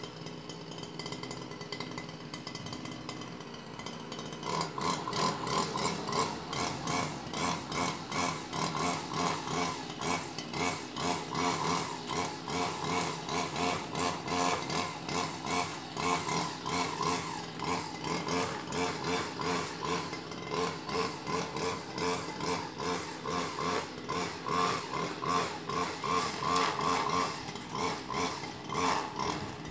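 A small motor-driven power tool running outdoors with a fast, pulsing rhythm, getting louder about four seconds in.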